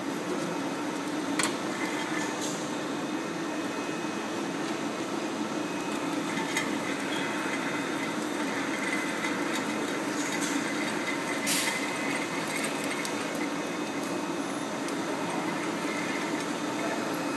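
Butyl rubber extrusion line machinery running: a steady mechanical hum of motors and rollers, with a couple of brief clicks.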